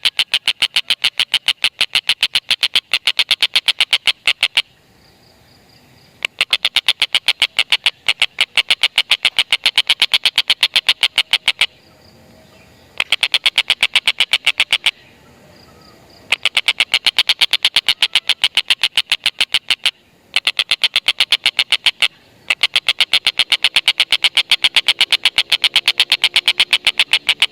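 Collared kingfisher (tengkek buto) giving its long 'ngekek' chattering call: rapid, evenly spaced, sharp 'kek' notes in loud runs of a few seconds each, broken by short pauses.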